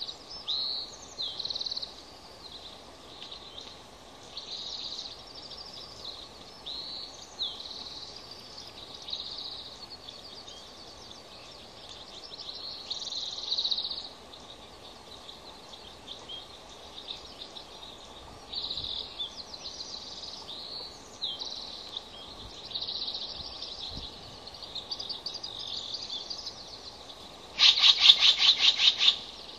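Bald eagle calls at the nest: high chirping, whistled notes on and off, then near the end a loud rapid string of sharp piping notes, the eagle chatter call. A steady hiss runs underneath.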